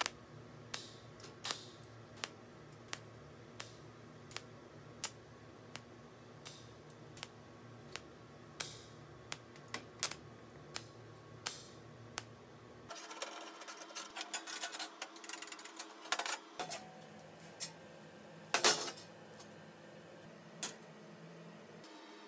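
Small hammer tapping a steel wire-mesh grill grate flat against a steel welding table, a steady light tap about every 0.7 seconds. After about 13 seconds it gives way to a few seconds of hiss and crackling from tack-welding the grate, then one sharper, louder knock.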